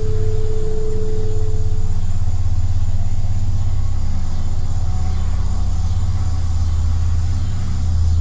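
Loud, steady low rumbling hum of the kind reported as strange sounds from the sky. A higher held tone above it stops about two seconds in.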